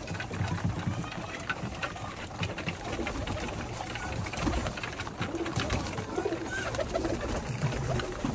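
A flock of domestic pigeons cooing while feeding on the ground, with many short sharp clicks and some wing flutters among them.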